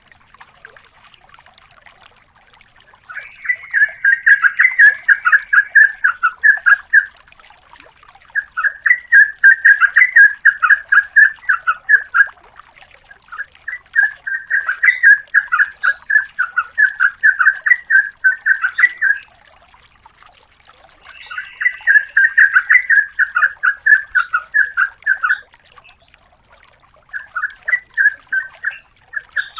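Yellow-vented bulbul (trucukan) singing: five long bouts of rapid, repeated chattering notes, each several seconds long, with short pauses between them.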